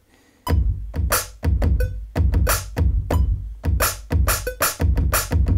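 Drum beat finger-played on a Maschine MK3's pads, triggering a drum kit loaded in Maschine: a deep kick with bright hits on top, starting about half a second in. A metronome click ticks steadily along with it.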